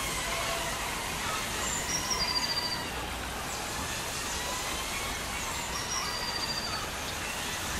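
Small indoor drone's propellers whirring: a steady hiss with a faint whine that wavers slightly in pitch as the throttle changes.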